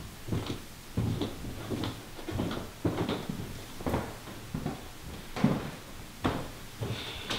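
Footsteps on a house floor or wooden stairs: a run of unevenly spaced thuds, roughly one every half second to a second.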